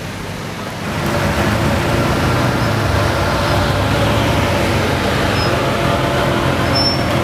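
Ferrari 599's V12 engine running as the car drives slowly off, getting louder about a second in and then holding steady.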